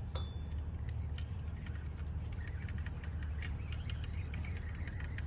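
Steady outdoor background: a low rumble under a constant high-pitched whine, with a few faint clicks.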